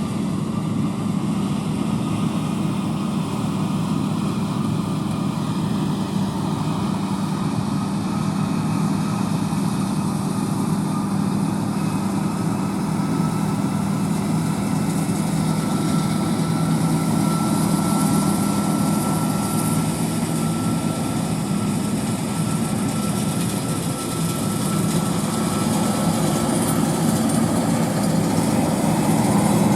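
John Deere combine harvesting soybeans, its diesel engine and threshing machinery running with a steady hum that grows louder near the end.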